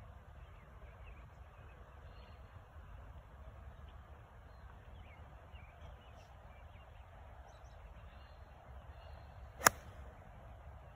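A golf iron striking a ball off the tee: one sharp click near the end, over quiet outdoor ambience.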